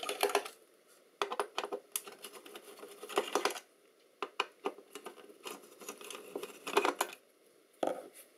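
Small metallic clicks and scrapes from hands working an avionics module loose from its metal chassis, in several short irregular bursts with brief pauses between them.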